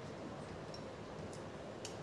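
A few faint metallic ticks as small parts are handled at a Shimano hydraulic disc brake caliper on a bicycle, over a low steady background hum.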